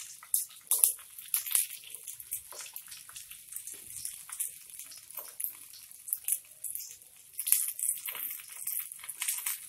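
Stuffed brinjals sizzling in hot oil as they are laid into a frying pan with cumin and fennel seeds: a steady high hiss with irregular sharp crackles and spits.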